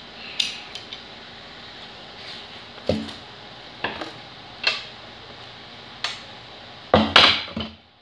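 Metal clicks and clinks from an LQK-300 hand-pumped hydraulic crimper being worked: a handful of sharp clicks spaced irregularly about a second apart, then a louder metallic clatter near the end.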